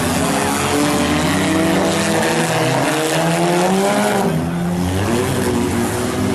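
Several demolition-derby car engines running and revving at once, their pitches rising and falling against each other over a steady wash of noise.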